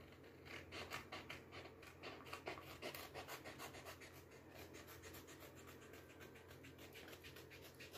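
Scissors cutting paper in quick small snips, as around the outline of a sheet, faint, with most of the cuts in the first half.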